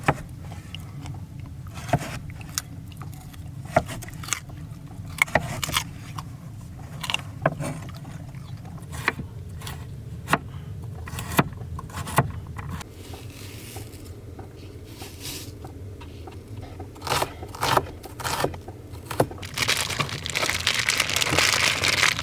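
Knife chopping vegetables on a cutting board: separate sharp chops, roughly one a second, with a quicker run of chops near the end and a rustling noise over the last couple of seconds. A low steady hum underneath stops about halfway through.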